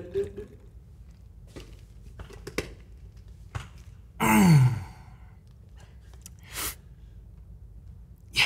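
A man's loud, breathy 'ahh' sigh after swallowing a drink, its pitch falling over about half a second, about four seconds in. A few faint clicks come before it.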